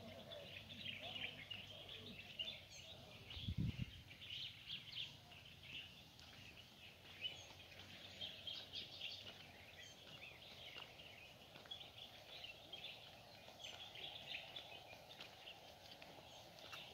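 Small birds chirping and twittering continuously in the trees, a faint busy chorus of short calls, with one brief low thump about three and a half seconds in.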